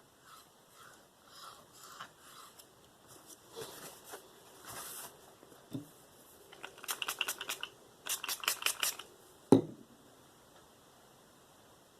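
Spyderco Endura 4 K390 steel blade stroked by hand across a soap-and-water-lubricated Venev diamond stone: soft, even passes at first, then two quick runs of short, sharp scraping strokes. A single loud knock comes near the end.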